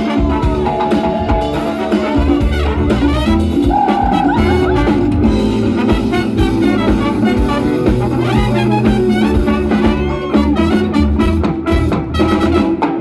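Live Latin band playing an instrumental passage of upbeat dance music, with horns and drums.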